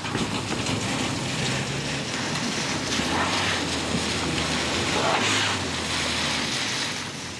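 A car driving on wet tarmac, its tyres hissing through the water over a low, steady engine hum.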